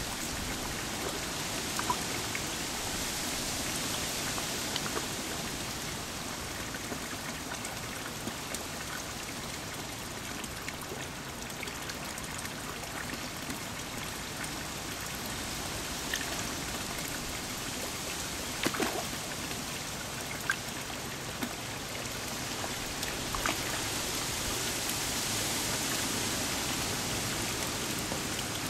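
Steady splashing of water running into a garden pond, with a few brief sharp splashes scattered through it.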